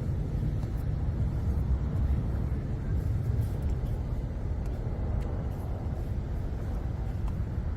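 Steady low street rumble, the kind of road-traffic noise heard beside a busy road, with no distinct events.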